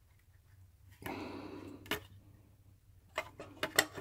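Plastic secondary air pump and its hose being handled and worked loose by hand: a rubbing scrape for just under a second, a single click, then a quick run of plastic knocks and rattles near the end.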